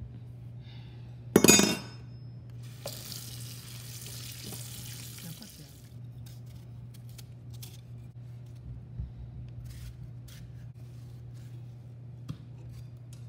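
Kitchen sounds as a honeydew melon is cut with a large knife at a stainless-steel sink: a loud knock about a second and a half in, a few seconds of running tap water, then scattered knife taps and clicks on a cutting board. A low steady hum runs underneath.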